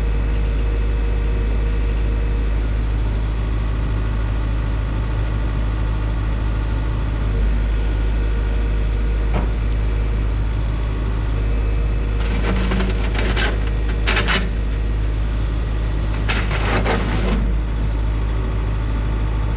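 2011 Atlas 140W wheeled excavator's diesel engine running steadily, with three short bursts of crunching and crackling in the second half as the bucket comes down onto the gravel.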